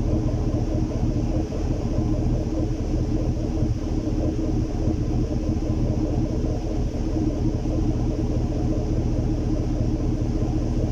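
GMC Sierra pickup's engine idling, heard at the exhaust outlets as a steady low rumble with a choppy, uneven beat. This is the sign of a misfire that moves between cylinders, which the mechanic suspects comes from a weak fuel pump.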